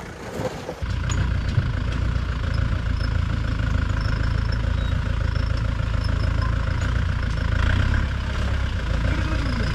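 A vehicle engine running steadily with a deep rumble, starting abruptly about a second in.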